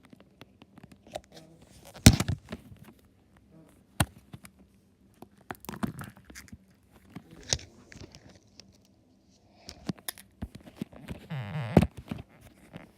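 Floam slime being squeezed and poked, giving irregular sharp crackles and clicks, the loudest about two seconds in and near the end.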